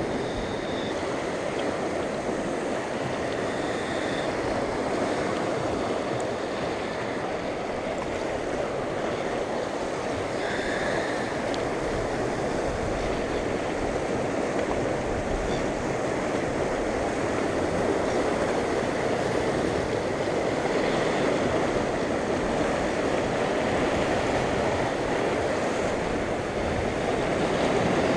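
Sea surf washing around shoreline rocks: a continuous rushing that grows a little louder in the second half.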